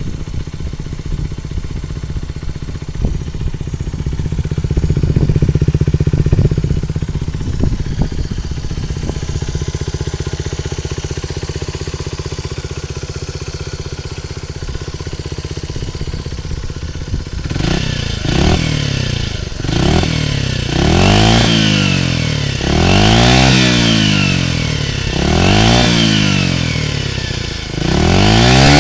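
Honda R&P CY50 minibike's 49cc four-stroke single running through a one-off exhaust (stock header pipe joined to a stainless slip-on silencer): a steady idle for the first half, then a series of quick throttle blips, the revs rising and falling about every two seconds. Its loudness is about that of the stock muffler.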